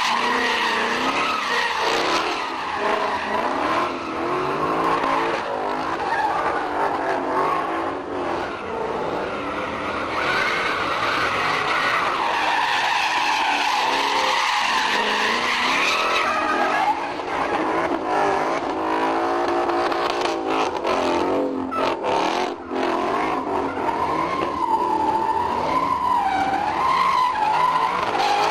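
Ford Mustang drift cars sliding sideways, engines revving up and down hard over continuous tyre squeal and skidding. The pitch of both engine and squeal keeps rising and falling.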